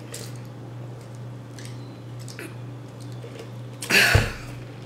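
A person drinking from a fountain-drink cup, with faint small swallowing sounds, then a loud breathy exhale after the drink about four seconds in as the cup comes down. A steady low hum runs underneath.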